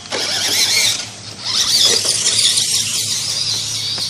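Toy RC car's electric motor and gears whirring at a high pitch as it drives, easing off briefly about a second in and then running on.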